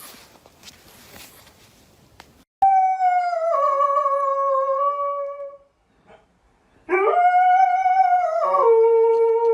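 A dog howling: a long howl sliding slowly down in pitch for about three seconds, then, after a short pause, a second howl that swoops up, holds, and drops to a lower steady note.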